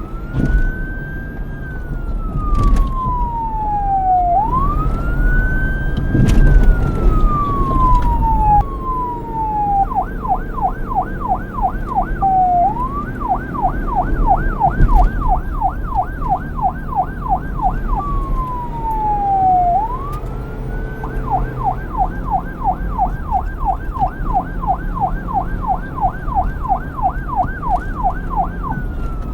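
Police car electronic siren switching between a slow wail, rising and falling over a few seconds, and a fast yelp of about three sweeps a second, with a steady low rumble underneath.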